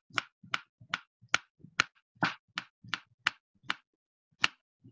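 Knife slicing a peeled banana into rounds on a plastic cutting board: the blade taps the board with each cut, about eleven sharp taps at two to three a second, with a short pause before the last one near the end.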